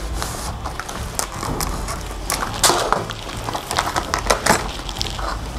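Plastic film packaging being slit with a utility knife and peeled off a stack of clutch discs, crinkling and crackling in many short clicks, over background music.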